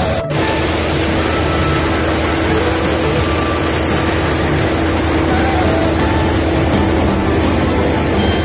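Tractor-driven wheat thresher running steadily with its tractor's diesel engine, threshing sheaves of wheat as they are fed into it.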